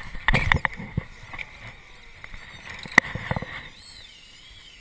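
Sharp clicks and knocks of a fly rod, reel and line being handled, thickest in the first second, with one loud click about three seconds in and a few more right after. A faint wavering whistle falls in pitch near the end.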